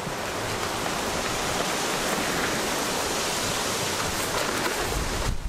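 A steady, even hiss that builds over the first second, holds, and cuts off abruptly near the end.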